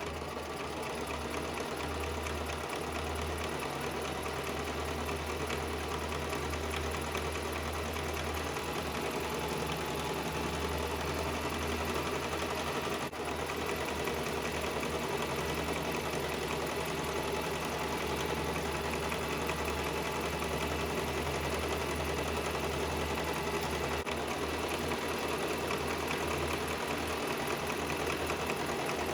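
Sewing machine running steadily under the foot pedal, stitching a long straight seam through two hair weft tracks, with one brief dip about thirteen seconds in.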